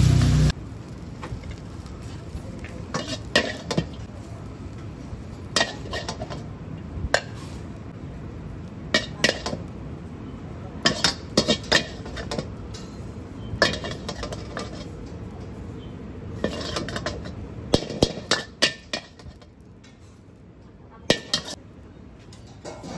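Metal wok spatula knocking and scraping in a wok as fried rice is scooped out, giving scattered sharp clinks. A loud frying sizzle cuts off about half a second in.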